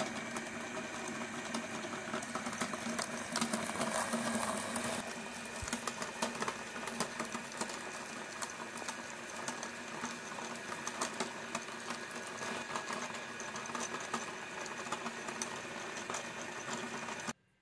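Electric meat grinder running with a steady motor hum while its auger and cutting plate grind rubber bouncing balls, with constant crackling and clicking. The sound stops abruptly near the end.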